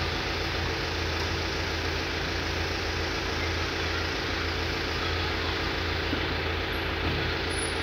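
An engine idling steadily: a constant low rumble with an even pulse that does not change.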